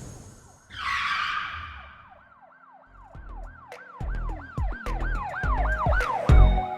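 Intro sound effects: a whoosh that falls in pitch, then a quick series of siren-like whoops, each rising and falling, about three a second, over heavy bass beats.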